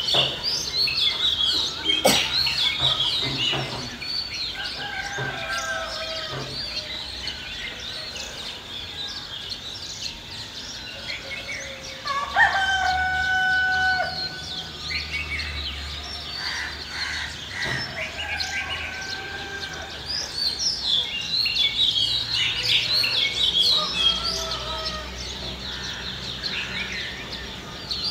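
Village ambience: small birds chirp throughout, busiest at the start and near the end. A rooster crows once, a long held call about twelve seconds in, with shorter fowl calls a few seconds in and a sharp knock about two seconds in.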